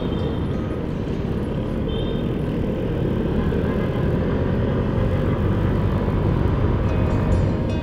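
Suzuki Skydrive 125 FI scooter's single-cylinder engine running on the move, with steady road and wind rush from riding.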